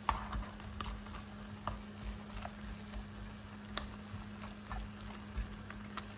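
Goat meat and pomo cooking in a pot: a faint sizzle with scattered light clicks as they are stirred, over a steady low hum.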